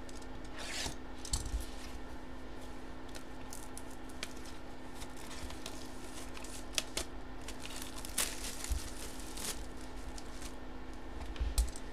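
A small cardboard box being opened and handled by hand: scattered rustles, scrapes and light clicks of the cardboard flaps, over a steady low hum.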